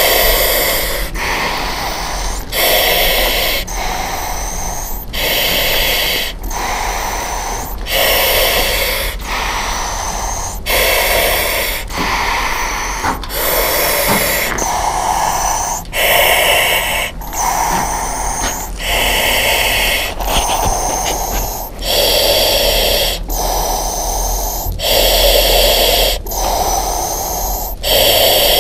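A firefighter breathing through an SCBA face mask: loud, close inhales and exhales in steady alternation, about one full breath every two to three seconds.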